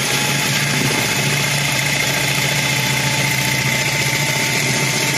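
Handheld electric mixer running steadily at speed, its twin beaters whipping cream in a stainless steel bowl, at the early stage where the cream has only begun to foam.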